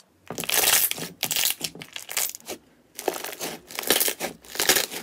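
Hands squeezing and kneading a mass of glossy pink slime, which gives off dense wet crackling and popping. The crackles come in two long stretches, the second starting about three seconds in.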